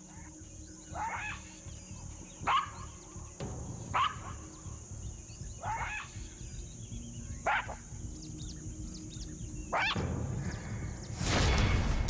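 Black-backed jackals giving short, sharp yelping barks, about six calls spaced a second and a half apart. Near the end a loud drum-led music cue comes in.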